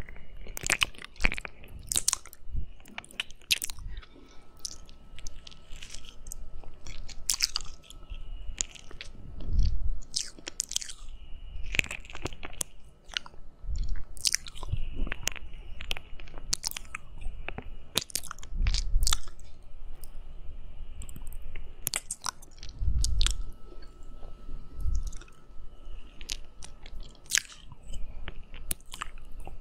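Close-miked wet mouth sounds of licking and mouthing a binaural microphone's silicone ear: irregular smacks and clicks, with a few low thumps where the ear is bumped.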